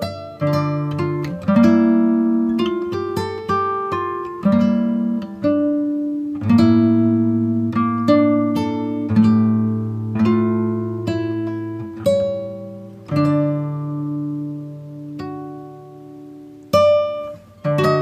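Background music: plucked acoustic guitar notes and chords, each note ringing and fading.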